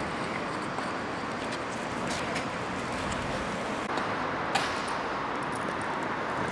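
Steady rolling noise of scooter wheels over stone paving, with street traffic hum behind it and a light click about four and a half seconds in.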